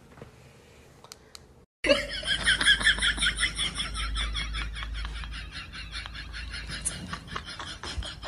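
High-pitched laughter in rapid pulses, starting suddenly about two seconds in after a quiet stretch with a few clicks, and running on as quicker, softer pulses.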